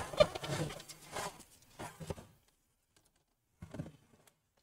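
Handling noise as an all-in-one desktop computer is turned around on a table: a few light scrapes and taps in the first two seconds, then near quiet with a couple of faint clicks.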